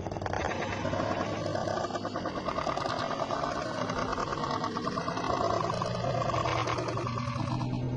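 A person snoring with a rapid rattling flutter that stops shortly before the end.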